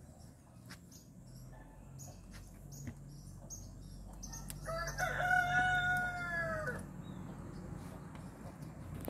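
A rooster crows once, a single drawn-out call of about two seconds roughly halfway through.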